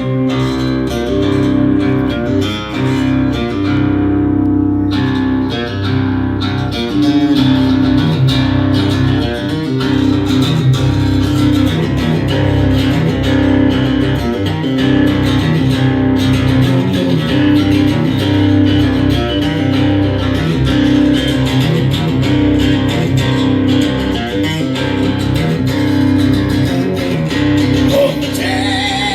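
Guitar played live, strummed chords ringing on steadily; a wavering voice comes in near the end.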